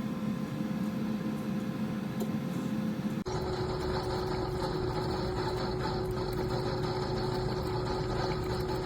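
Steady mechanical hum. About three seconds in it cuts abruptly to a different steady hum carrying a clear held tone.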